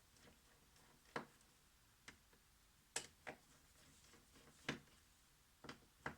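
Sharp, light clicks and taps of small tools and tiny metal phone parts against a work surface during smartphone disassembly: about seven separate ticks at irregular intervals, with two close together about three seconds in and two more near the end.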